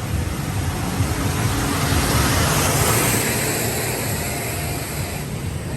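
A motor vehicle's engine running under a steady low rumble and road or wind hiss. The hiss swells louder about two to three seconds in, then eases off.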